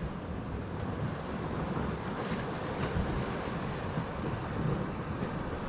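Sea waves washing against a rocky shore, with wind buffeting the microphone: a steady rushing noise.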